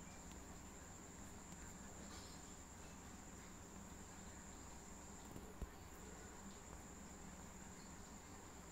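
Near silence: faint room tone with a thin, steady high-pitched whine and a low hum.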